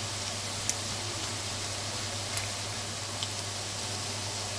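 Small whole goby fish deep-frying in a wok of oil thickened with a little cornstarch to keep it from spattering: a steady sizzle with a few sharp crackles, late in frying as the fish turn golden and crisp.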